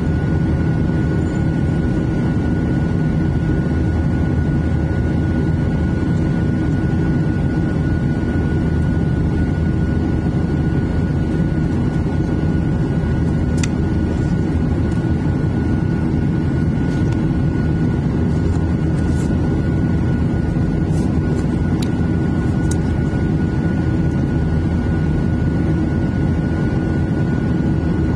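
Steady in-flight cabin noise of a Boeing 737-800 heard at a window seat over the wing: the low drone and air rush of its CFM56-7B turbofan engines, with a thin steady whine above it. A few faint clicks come in the second half.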